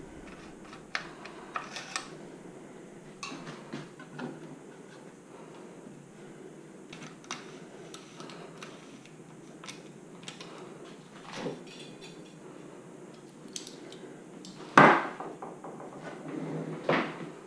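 Scattered light clicks and clatters of handling a bicycle wheel and tools, with a louder knock about fifteen seconds in and another near the end.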